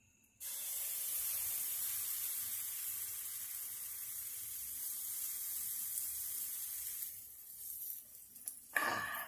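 Pancake batter sizzling as it is poured into a hot nonstick frying pan. The hiss starts suddenly about half a second in, holds steady, and dies away after about seven seconds.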